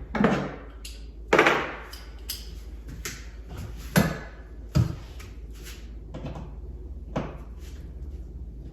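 Scattered knocks and clunks from handling and adjusting the hardware of a TV wall mount while it is being loosened. The loudest are about a second and a half in and again at about four seconds, with a few softer knocks after them.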